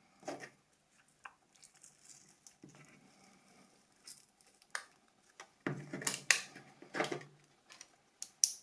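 Scattered clicks and short scrapes of hard plastic being pried and worked apart on a mobile phone battery pack's casing. The handling is sparse at first and busiest from a little past the middle, with two sharp clicks near the end.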